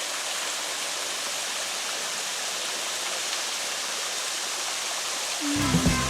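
Waterfall's water rushing steadily. About five and a half seconds in, a different sound with steady low tones cuts in abruptly.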